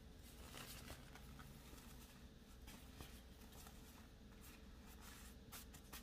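Faint rustling and soft scratchy strokes: a thin sheet of phyllo dough laid into a metal baking pan and brushed with melted butter using a small paintbrush.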